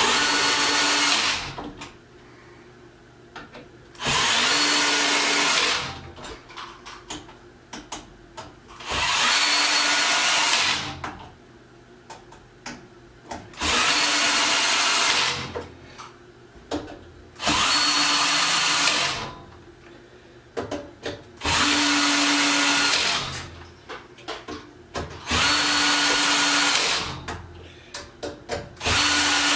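Power drill driving screws in short bursts, eight runs of about one and a half to two seconds each, about four seconds apart, tightening down the rack's screws. Small clicks and taps of handling come between the runs.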